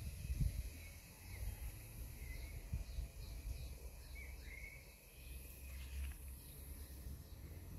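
Outdoor ambience: scattered brief bird chirps over a steady high-pitched insect drone, with a low rumble underneath.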